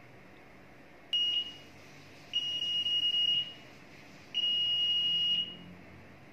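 Electronic buzzer of an LED prayer-time clock beeping three times in a high steady tone: one short beep, then two beeps of about a second each. The beeps signal the end of the iqamah countdown.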